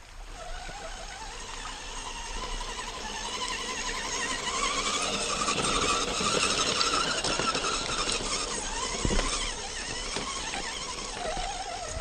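Electric motor and gears of an RC crawler truck whining, wavering in pitch with the throttle, swelling through the first half and easing off later. A single knock about nine seconds in.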